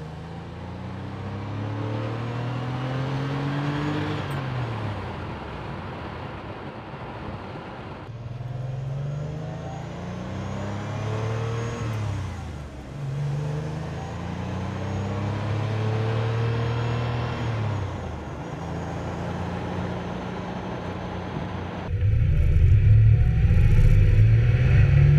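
The air-cooled 3.2-litre flat-six of a freshly top-end-rebuilt Porsche 911 Carrera pulls through the gears. Its note climbs, drops back at each upshift about three times, then holds steady, running smoothly without misfires. It gets suddenly louder near the end.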